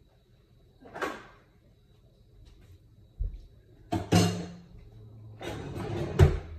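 Kitchen handling sounds: a few sliding and knocking noises like cabinet doors or drawers being opened and shut. There is a dull thump a little after three seconds in, and the loudest knock comes near the end.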